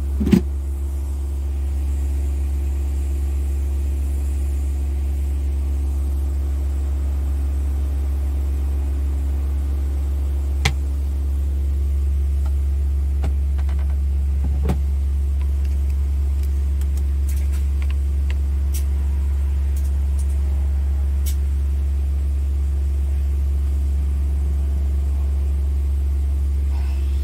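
Scania R tractor unit's engine idling, a steady low rumble with an even hum heard inside the cab, and a couple of light clicks partway through.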